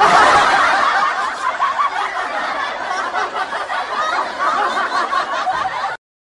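Loud, continuous laughter that cuts off abruptly just before the end.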